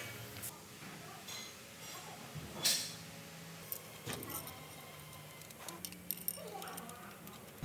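Scattered light clicks and clinks of metal tools and engine parts being handled, with one sharper click about two and a half seconds in.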